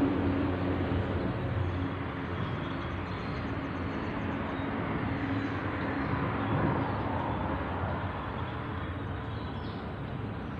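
Steady rumble of motor traffic crossing the concrete road bridge overhead, easing slightly toward the end.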